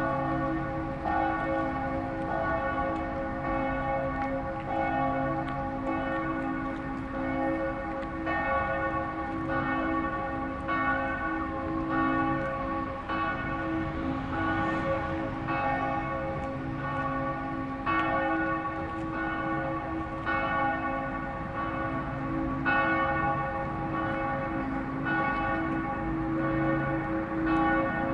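Church bells ringing a continuous peal: several bells sound together, with a new stroke about every second over the lingering ring of the last.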